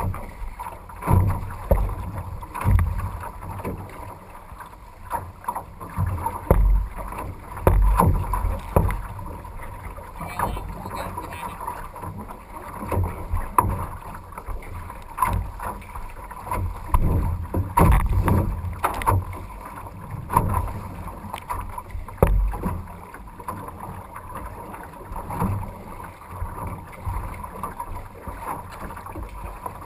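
Canoe being paddled hard through wind-driven chop: irregular low thumps and splashes of paddle strokes and waves against the hull every second or two, over wind buffeting the microphone.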